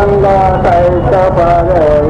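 A voice in drawn-out, sing-song tones over a steady low rumble.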